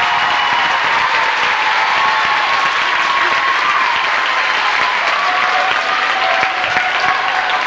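Basketball crowd applauding steadily, with voices calling out over the clapping.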